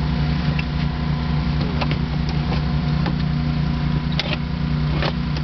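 Engine running steadily, driving a hydraulic rescue tool ('jaws of life') as it works on a car's front door hinge. A few sharp cracks of metal come about two, four and five seconds in.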